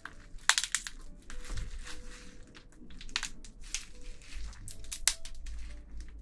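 Spicy marinated raw swimming crab being broken apart by gloved hands, its thin shell cracking and crackling in irregular sharp snaps through the sticky chili sauce.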